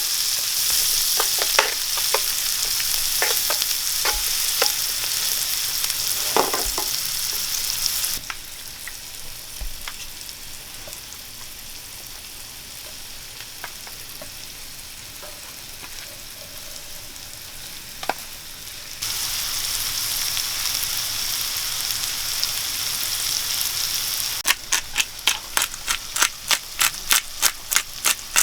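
Food sizzling and frying in a hot pan while being stirred, with clicks of the utensil against the pan. The sizzle drops away abruptly about eight seconds in and comes back about eleven seconds later. Near the end a fast run of sharp, even taps, about four a second, joins the sizzle.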